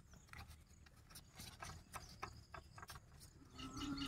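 Faint crinkling and light taps as butter paper is laid into a greased cake vessel, with a chicken starting to cluck near the end.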